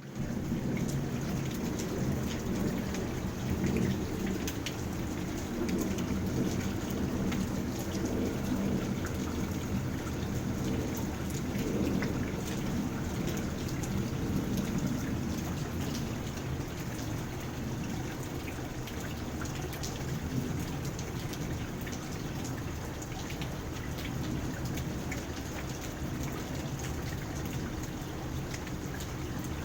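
Steady rain pattering onto a koi pond's water surface, with a deep low rumble underneath that is heavier in the first half and eases after about fifteen seconds.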